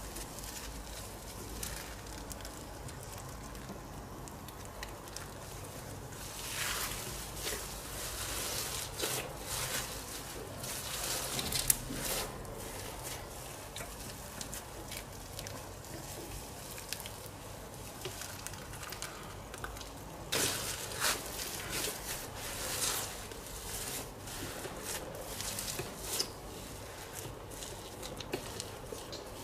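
Homemade borax-free slime being worked, with irregular wet, sticky squishes and crackles over a faint steady hum. The squishes come in two runs, about a quarter of the way in and again in the later part, with one sharper snap midway.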